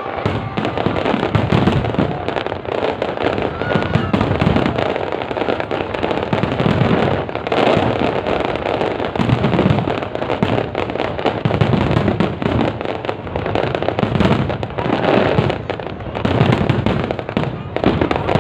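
Fireworks display: a dense, unbroken barrage of bangs and crackles, with deep booms recurring every second or two.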